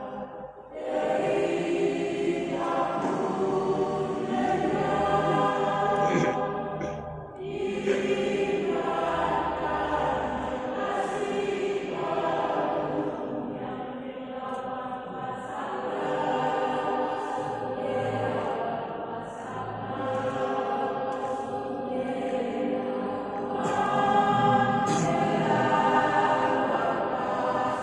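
Choir singing held chords in long phrases, with brief pauses between phrases about half a second in and again about seven seconds in.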